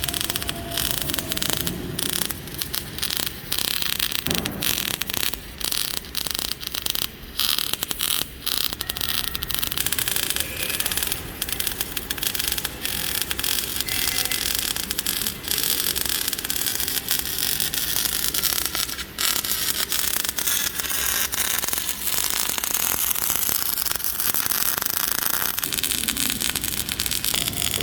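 Metalworking on a hydraulic breaker body: a steady harsh hiss with crackling and scraping, and many sharp clicks in the first half.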